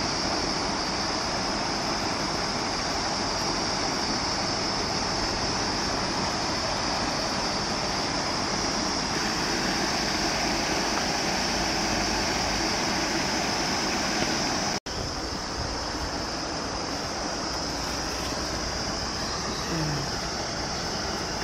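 Steady rushing noise of flowing stream water with a constant high hiss over it, broken by a sudden momentary dropout about fifteen seconds in.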